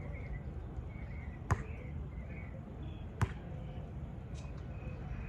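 A basketball bouncing twice, about a second and a half in and again near the three-second mark.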